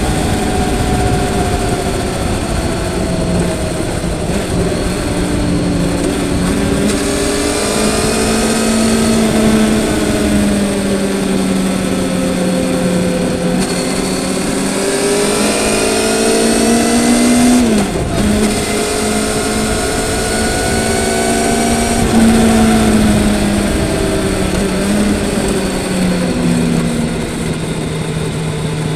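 Motorcycle engine under way, its pitch rising and falling again and again as the rider opens and eases the throttle through the bends, with a sharp drop about 18 seconds in, over a rush of wind and road noise.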